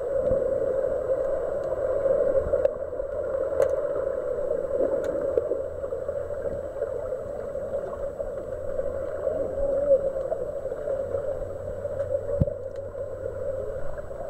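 Muffled underwater pool ambience heard through the water: a steady watery rush with a low rumble, broken by a few faint sharp clicks.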